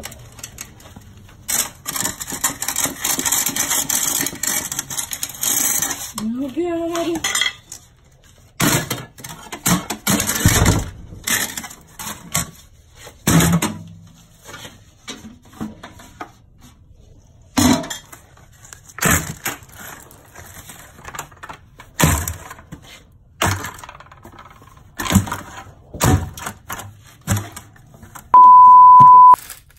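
A series of separate knocks and cracks as a failed cast refractory foundry liner is broken up and chunks drop onto a concrete floor. A steady one-tone censor bleep sounds near the end.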